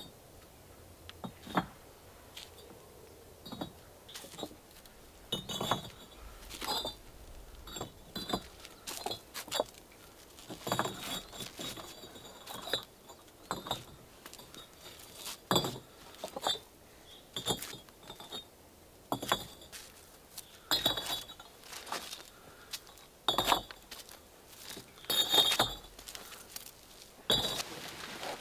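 Pale bricks being picked up and set down on one another, an irregular run of sharp clinks and knocks, roughly one every second or so. The loudest knock comes near the end.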